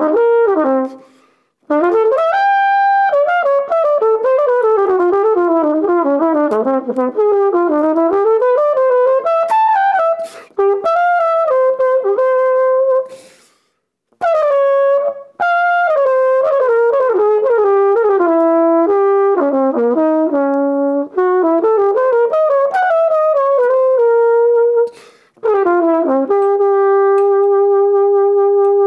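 Flugelhorn played solo and unaccompanied: jazz phrases of quick changing notes, broken by short pauses for breath, ending on a long held note.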